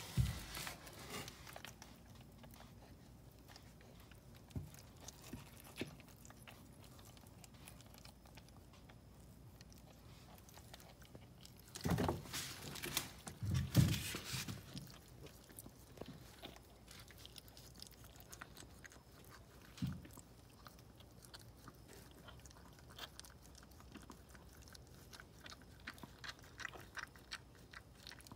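Maltese mother dog licking and nibbling her newborn puppies: soft wet licking and small mouth clicks, with a couple of louder bursts about twelve and fourteen seconds in.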